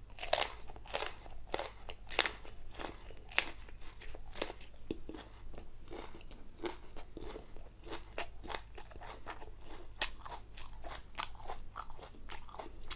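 Close-miked crunching and chewing of raw bird's eye chili peppers: an irregular run of crisp bites and wet chews, the sharpest bites about two and three and a half seconds in.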